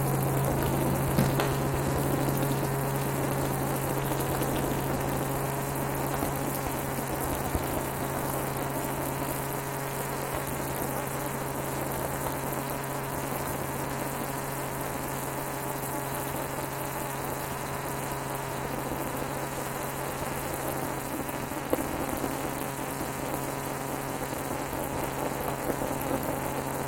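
Helicopter running with a steady drone and an even hiss, several faint steady tones held throughout.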